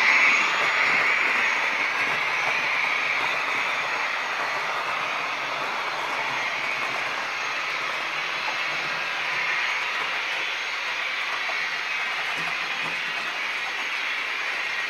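Model trains running on the layout's track: a steady whirring rush of small wheels and motors, loudest at the start as a train passes close by, then settling to an even level.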